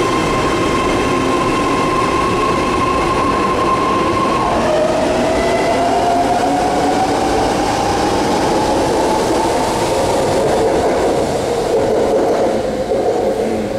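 BART train pulling out of the station: its steady electric propulsion whine drops lower about four and a half seconds in, then climbs slowly in pitch as the train gathers speed. Wheels rumble on the rails underneath.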